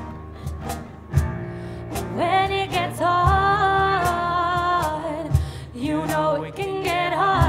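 Live acoustic band: a singer holds long sung notes over acoustic guitar, keyboard and regular cajon strokes, with a deep hit about every two seconds.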